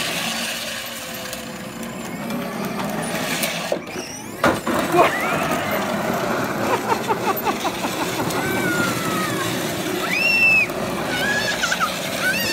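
Battery-powered children's ride-on toy car driving over a concrete driveway: the small electric motor whirring and the hard plastic wheels grinding on the concrete. A few short high-pitched calls come in the second half.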